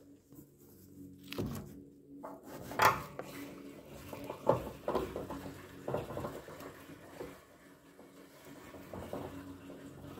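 Scattered clanks and knocks of a tractor being refuelled by hand, a gas can and filler cap being handled, the loudest about three seconds in.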